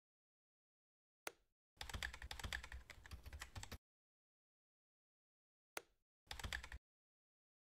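Computer keyboard typing: a single click about a second in, a rapid run of keystrokes lasting about two seconds, then another click and a short burst of keys near the end.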